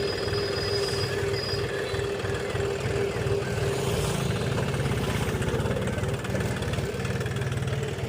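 Heavy diesel engine running steadily, a fast low throb with a steady tone above it.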